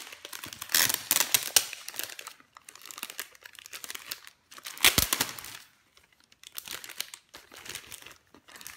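Clear plastic sleeve crinkling as it is pulled off a spiral-bound desk calendar, in irregular crackles, loudest about a second in and again about five seconds in, with a dull knock about five seconds in.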